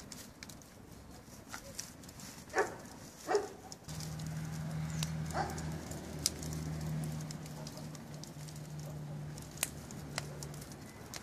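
Log fire crackling, with sharp pops throughout. Two short animal calls come at about two and a half and three and a half seconds in, and from about four seconds a steady low hum starts, from the electric rotisserie motor turning the spit.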